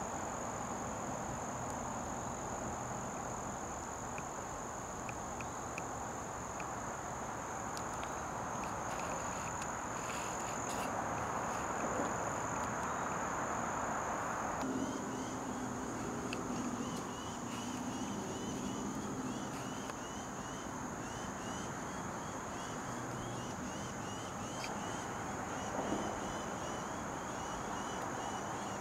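Insects calling: a steady high-pitched drone throughout, joined about halfway through by a repeating chirp.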